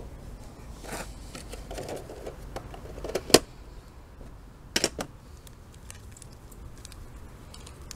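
Handling noises from a Pokémon card tin and foil booster packs: a few sharp clicks and taps, the loudest about three seconds in and a close pair near five seconds, with soft rustling between.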